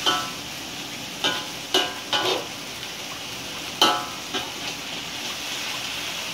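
Water spinach sizzling steadily as it is stir-fried in a hot wok, with the spatula scraping and striking the wok about six times, some strikes ringing briefly like metal.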